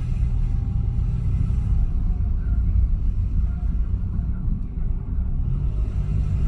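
2017 Mitsubishi Mirage with CVT under way, a steady low rumbling drone. This is the noise the owner hears while driving at certain revs, which the title takes for a metal part vibrating.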